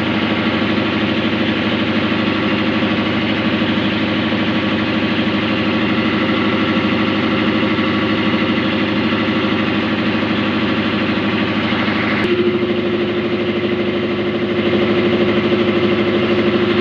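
A motor running steadily with a loud, even hum. About twelve seconds in its hum steps up slightly in pitch, and it grows a little louder a couple of seconds later.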